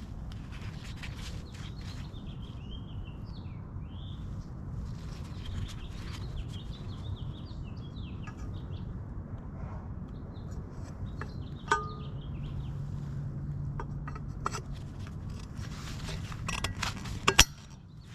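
Birds chirping in the background over a steady low hum, with scattered clicks and knocks from work on the car. About two-thirds of the way through there is one ringing clink, and near the end a loud, sharp knock.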